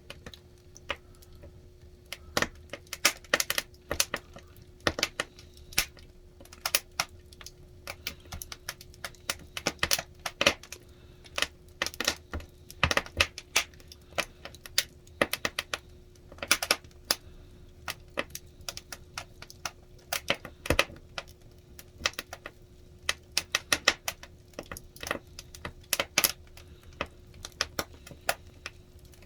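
Firewood burning in a traditional Korean agungi furnace, crackling with irregular sharp pops and snaps, over a faint steady low hum.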